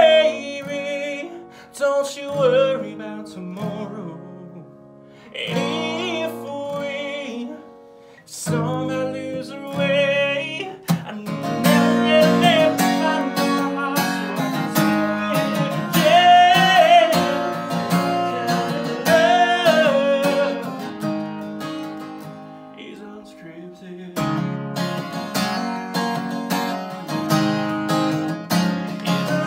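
Live song with voice and strummed acoustic guitar: sung phrases with short gaps between them. The guitar gets fuller about a third of the way in, drops quieter a little after two-thirds, then picks up again.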